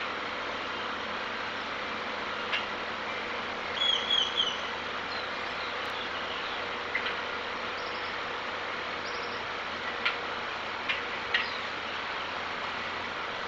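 Outdoor ambience of a steady hiss with a faint hum. Short, high bird chirps cut through it: a quick run of three or four about four seconds in, and a few single calls later on.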